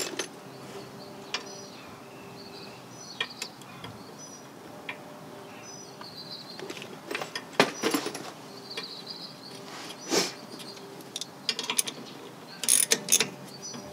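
Scattered metallic clicks and ratcheting as 8 mm bolts are screwed in by hand and with a socket wrench into the threaded holes of a 2008 Toyota Yaris rear brake drum, to press the stuck drum off the hub.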